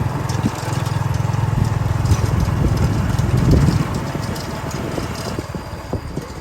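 A vehicle's engine running steadily while travelling along a road, easing off and growing quieter after about four seconds.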